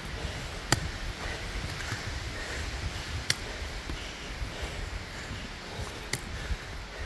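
Footsteps climbing a rocky dirt trail, with a low rumble on the microphone and three sharp clicks a few seconds apart.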